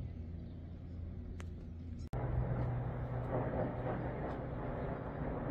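Quiet outdoor background with a low hum, then after an abrupt cut about two seconds in, the louder steady drone of aircraft flying overhead.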